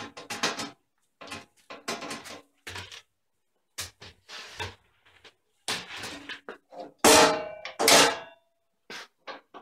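Clattering knocks and rattles from a jointer/planer's dust-collection hose being pulled off its dust hood and the hood being handled, with two loud clunks about seven and eight seconds in.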